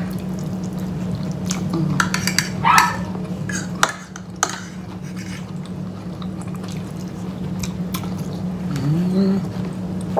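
Forks and knives clicking and scraping on ceramic plates as two people cut and eat their food, with scattered sharp clinks over a steady low hum.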